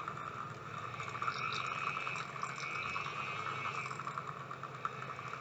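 Mini toy washing machine's small electric motor running steadily with an even whine, churning a makeup brush in cleaning solution and water.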